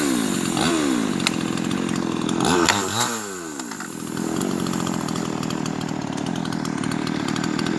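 Chainsaw engine revving. Its pitch drops quickly as the throttle is let off near the start and again about three seconds in, then it runs steadily at a lower speed.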